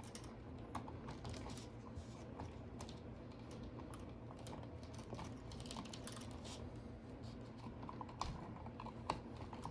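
Scattered light clicks and taps of hands handling electrical wires and tools at a wall switch box, over a faint low hum.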